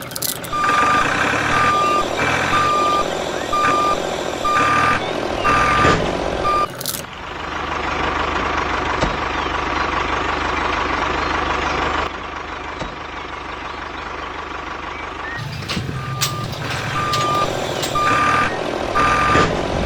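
Vehicle reversing alarm beeping steadily at one pitch, a little more than one beep a second, over a running engine. The beeping stops after about six seconds while the engine noise goes on, and starts again near the end.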